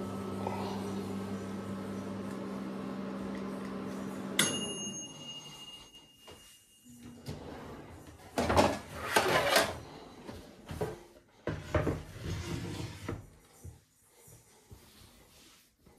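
Countertop mini oven humming, then its timer bell dings once about four seconds in and the hum stops as the oven switches off. Later a kitchen drawer is pulled open and a wooden cutting board is lifted out from among metal trays, with clattering and knocks.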